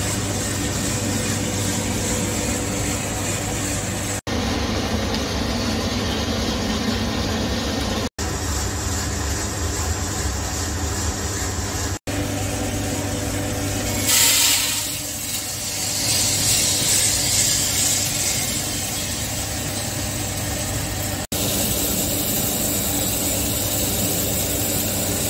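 Diedrich coffee roaster running: a steady machine hum from its motors and fan, broken by a few short dropouts. About halfway through comes a sudden loud rush as the roasted beans pour into the cooling tray, followed by a few seconds of brighter hiss.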